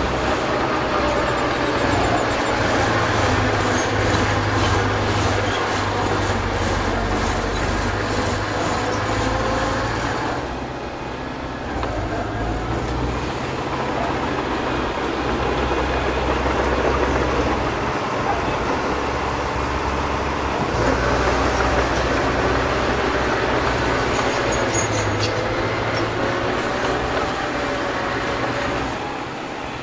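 Small crawler bulldozer at work: its diesel engine running under load with a wavering squeal and grind from the steel tracks as it pushes dirt. The engine eases off briefly about eleven seconds in and again near the end.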